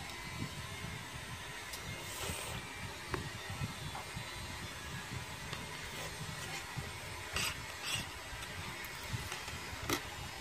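Quiet eating sounds at a table: a few short clicks and smacks from hands, food and plates, over a steady low background rumble.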